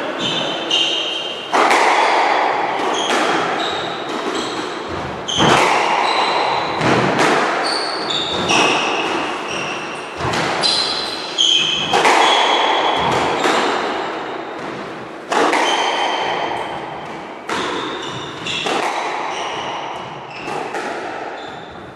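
A squash rally: the ball smacks off rackets and the walls about once a second, each hit echoing around the court, with short high squeaks of shoes on the wooden floor.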